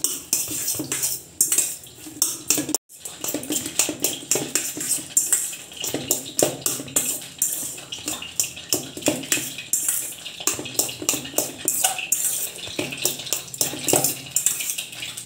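Stainless steel bowl clattering and scraping against the counter as bread crumbs and mashed banana are mixed in it by hand, a rhythmic knocking of about three strokes a second with a short break about three seconds in.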